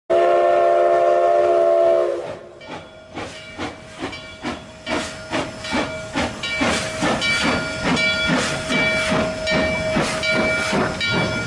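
Durango & Silverton narrow-gauge steam locomotive No. 486, a K-36 Mikado, sounds its chime whistle in one long chord for about two seconds. It then pulls away, its exhaust chuffing at a steady beat of about two and a half a second over hissing steam.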